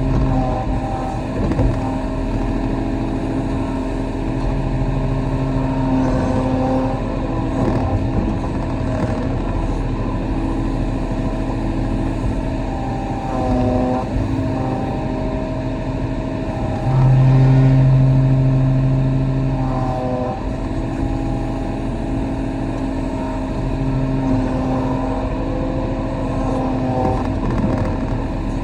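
Diesel engine of a Kobelco SK35 mini excavator running steadily under hydraulic load, its pitch dipping briefly twice and the sound growing louder for a few seconds in the second half as the machine works.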